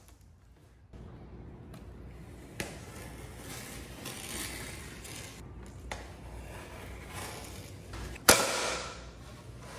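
Utility knife drawn along a wooden straightedge, scraping as it scores a thin panel, with a few small clicks. A loud sharp crack about eight seconds in fades over about a second.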